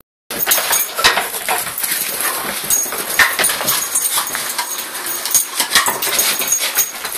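A Staffordshire bull terrier thrashing and worrying a pig's ear chew: a busy, continuous run of knocks and clicks.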